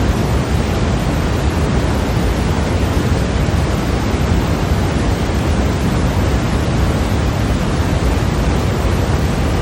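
Continuous white noise: a steady, unchanging hiss with a heavier low rumble underneath.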